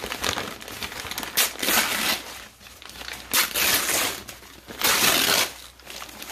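Brown kraft packing paper crinkling and being torn as it is pulled off a wrapped potted plant, in several separate bursts.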